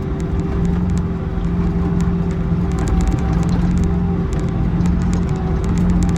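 Excavator's diesel engine running steadily at a constant pitch, with scattered light high clicks over it.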